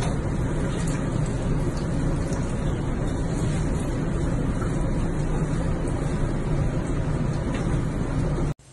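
Steady rushing of water in a bathtub with a low rumble underneath, even and unchanging, cutting off suddenly near the end.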